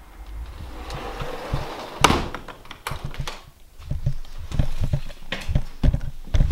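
Low wind rumble on the microphone, then a string of knocks, taps and rustling handling noise as the camera is carried and set down. The loudest knock comes about two seconds in, and a dense run of taps comes in the last couple of seconds.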